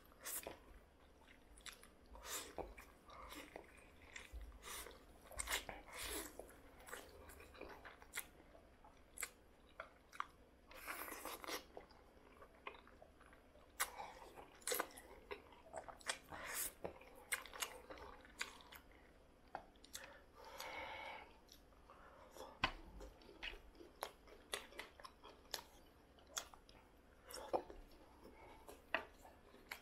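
Close-up mouth sounds of eating black noodles: wet chewing with irregular smacks and clicks, and a couple of longer slurps as noodles are sucked in.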